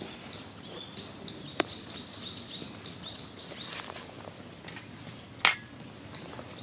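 A small bird singing a run of about eight quick, repeated high chirps. Two sharp pops cut through it, the second and louder one near the end, typical of burning wooden chopsticks crackling in a small can fire.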